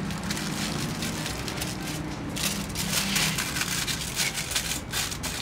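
Aluminium foil crinkling and crackling in irregular bursts as it is folded and pressed shut by hand.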